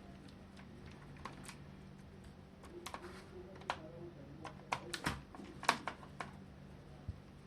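Irregular small clicks and taps of a screwdriver working screws out of a laptop's base, metal on metal and plastic. The sharpest click comes about two-thirds of the way through.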